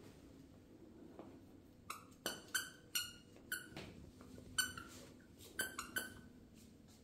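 A dog biting a squeaky toy, making about nine short, sharp squeaks in an irregular run that starts about two seconds in and stops about a second before the end.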